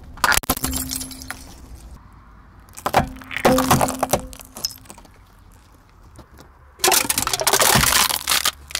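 A car tyre rolling over and crushing brittle objects: a hard plastic yo-yo cracks under it, then seashells crunch and break, with a third, longer run of crunching near the end.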